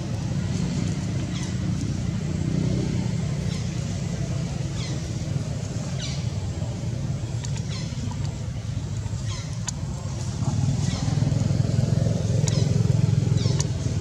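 A steady low rumble that grows louder for the last few seconds, with short high falling chirps scattered through it.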